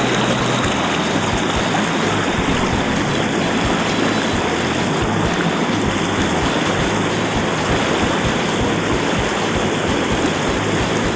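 Rushing river water, a steady loud hiss of current running over a shallow riffle, with some irregular low rumble underneath.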